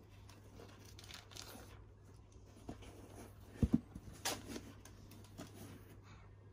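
Tissue wrapping paper rustling and crinkling as sneakers are handled in a cardboard shoebox, with two quick dull thumps about halfway through.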